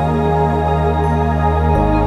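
Background music of slow, sustained chords, with the bass notes changing near the end.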